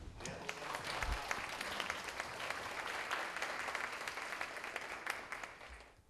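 Seminar audience applauding: a steady patter of many hands clapping that dies away near the end.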